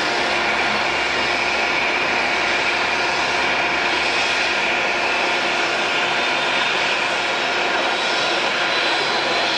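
Steady whine and rush of an Airbus A320 jet airliner on the ground, with several high tones held at an even level.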